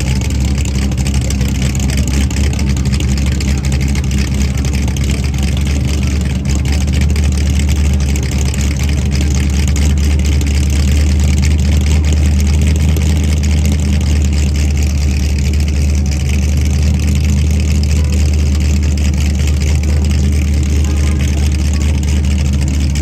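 Shelby Cobra-style roadster's V8 idling close by, with a steady low exhaust rumble.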